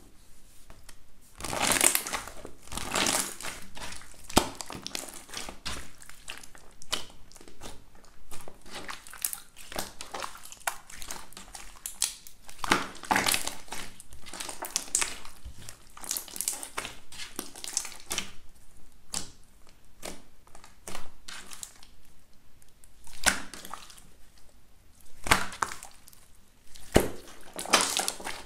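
Clear slime being pressed and kneaded by hand, crackling and popping irregularly, with a few louder pops standing out.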